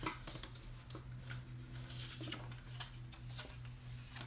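Cut cardstock pieces rustling and tapping faintly as they are picked up and handled on a tabletop, over a steady low hum.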